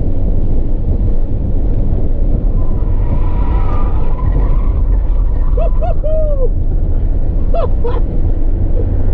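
Car driving at speed, a steady low rumble of engine, tyres and wind. A few short arching pitched sounds break through about two-thirds of the way in.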